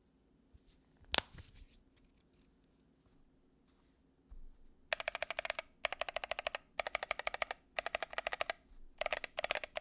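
Typing on a mechanical keyboard fitted with aluminum keycaps: one sharp clack about a second in, then from about halfway through, quick bursts of rapid keystrokes, each burst under a second long with short pauses between.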